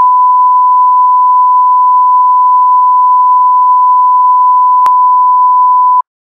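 Steady 1 kHz reference test tone of the kind that accompanies colour bars, held at one pitch with a brief click about five seconds in, then cut off abruptly.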